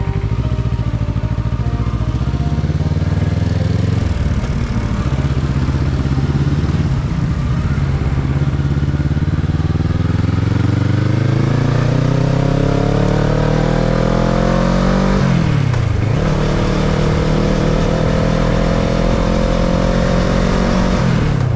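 Kawasaki ER-6n's 649 cc parallel-twin engine pulling under acceleration, revs climbing steadily, dropping sharply at an upshift about three-quarters of the way through, then climbing again before another shift near the end.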